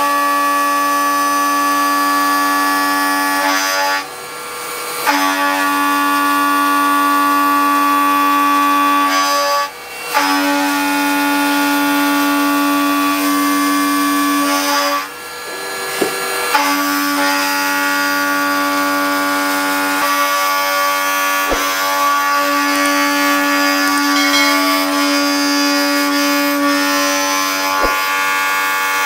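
Indexable-insert face mill on a CNC milling machine cutting rust-scaled steel: a loud, steady, high buzzing whine at one unchanging pitch. It breaks off briefly three times and builds back up each time as the cutter re-enters the cut, with two sharp clicks late on.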